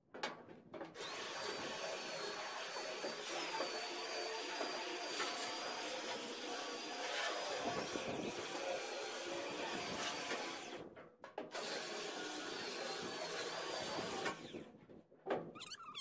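Handheld belt sander with a heavy-grit belt sanding metal, running steadily with a thin high whine. It cuts out about eleven seconds in, runs again for a few seconds, then stops near the end.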